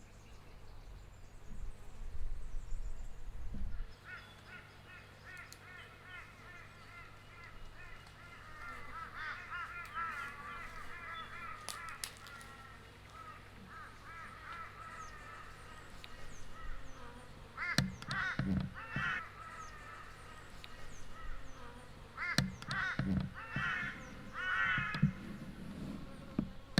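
Wild birds calling outdoors, with harsh caw-like calls loudest about two-thirds of the way through and again near the end, over a steady low buzz from a wild honeybee colony nesting in a tree. A low rumble sounds for a couple of seconds near the start.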